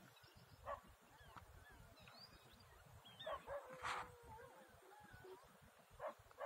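Faint outdoor ambience with scattered animal calls: many small, high chirps and a few short, louder calls about a second in, near four seconds and near the end, over a low flutter of wind on the microphone.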